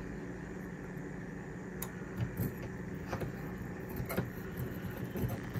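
A hex driver turning a small screw down through a nylon lock nut held in pliers on a carbon-fibre drone frame, giving a few faint, irregular clicks and scrapes of metal tool on screw and frame. A steady low hum runs underneath.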